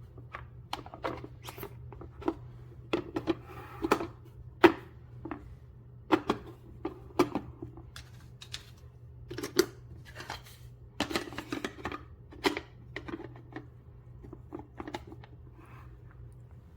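Irregular light clicks and knocks, a few to several a second, over a steady low hum: small objects being handled.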